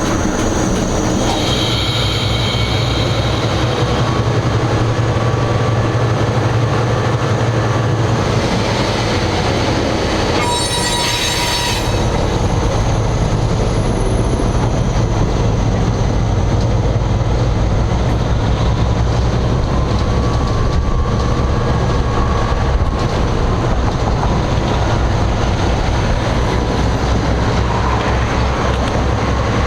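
GE 80-ton switcher locomotive heard from the cab, its diesel engines running steadily and the drone growing stronger about twelve seconds in as it gets under way on the return run. A brief high-pitched squeal sounds about ten seconds in.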